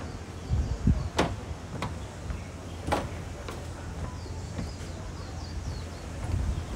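Outdoor street ambience: a steady low rumble with a few sharp knocks and clicks scattered through it.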